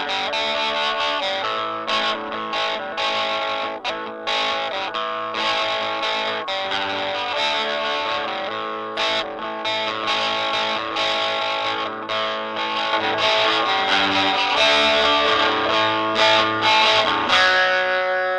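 Music led by a distorted electric guitar playing a run of changing notes.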